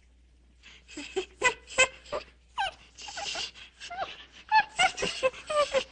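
A dog making a rapid series of short, high calls that slide up and down in pitch, starting about half a second in.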